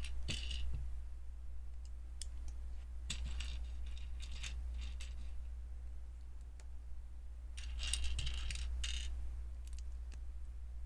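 Small plastic Lego bricks clicking and clattering as they are handled and picked through, in short bursts: at the start, around three to five seconds in, and again around eight to nine seconds in. A steady low hum underneath.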